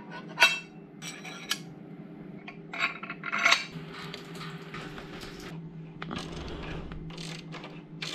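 Metal clinks and knocks as a motorcycle crash bar and its mounting bolts are handled and fitted to the frame. A few sharp clinks come in the first four seconds, then lighter scraping and tapping, over a steady low hum.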